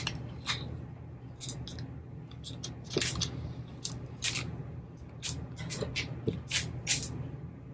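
Vinyl transfer tape being slowly peeled off a glossy glass subway tile, leaving the cut vinyl letters behind: a run of irregular soft crackles and ticks.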